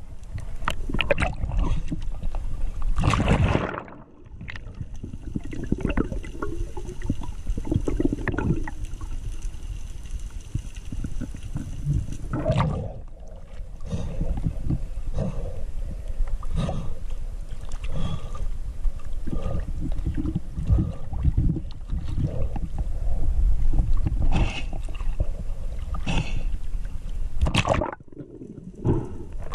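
Sea water sloshing and gurgling around an action camera that is underwater and at the surface in turn, with a steady low rumble and irregular knocks.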